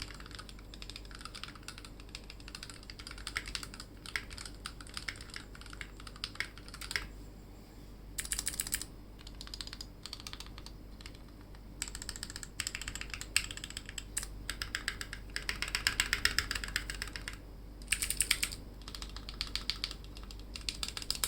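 Typing on a Drop Alt mechanical keyboard fitted with Gateron Yellow linear switches: runs of rapid keystroke clatter broken by short pauses, densest and loudest about 15 to 17 seconds in.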